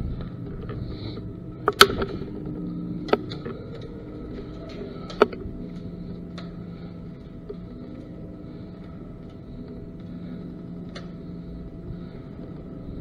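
A few sharp snaps of airsoft gunfire: two close together about two seconds in, then single ones near three and five seconds, with fainter ones later. A steady low hum runs underneath.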